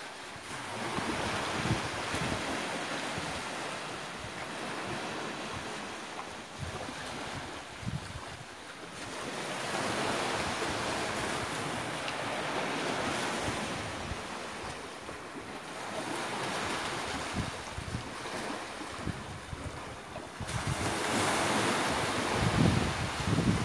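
Small sea waves breaking and washing up a sandy beach, the surf swelling and fading every several seconds and loudest near the end, with wind buffeting the microphone.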